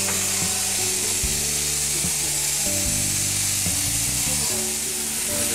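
Electric sheep-shearing handpiece buzzing steadily as it cuts through a ram's long fleece, with music playing alongside.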